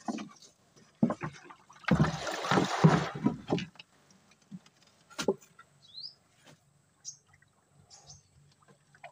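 Knocks and a rush of sloshing water with dull thuds as the fish catch is handled into a container, then a sharp click and a few short bird chirps.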